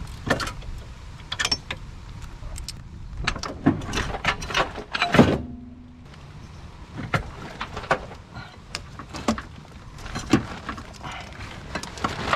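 Irregular metallic clicks, clanks and knocks of hand tools and parts being handled in a car's engine bay during removal of the AC compressor and its bracket, the loudest knock about five seconds in.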